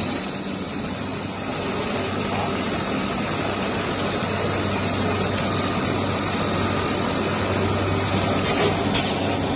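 Leaf-spring drilling machine running steadily, a constant low hum under an even mechanical noise.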